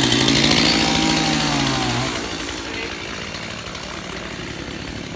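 Gasoline chainsaw running at high revs; its steady engine note drops away about two seconds in, and a quieter engine sound carries on.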